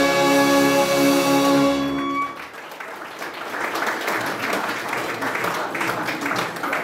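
Brass band holding a final chord, which cuts off about two seconds in; the audience then applauds.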